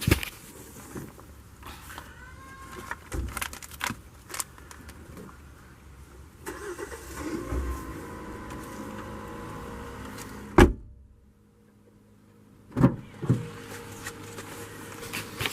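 Scattered clicks and knocks of someone handling things in and around a car, with one sharp loud knock about ten seconds in, after which the background drops almost to silence for a couple of seconds before two more knocks.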